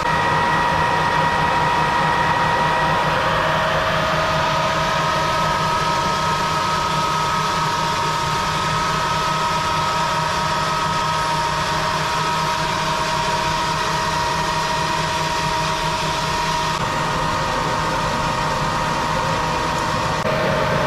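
A small machine's motor running steadily, with a high whine over a dense rushing noise.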